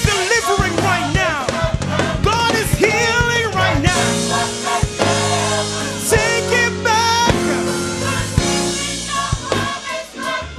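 Music: a singer backed by a band with drums, with steady held chords under the voice through the middle of the passage.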